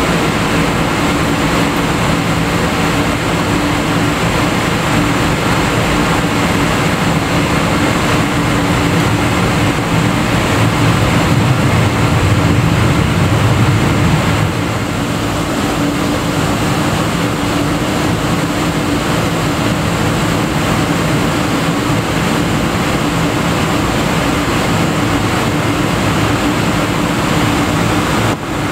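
Cabin sound of a Boeing 777-200ER taxiing, its Rolls-Royce Trent 892 engines running at low thrust: a steady hum over a low rumble. The rumble swells for a few seconds and then drops back a little past the halfway point.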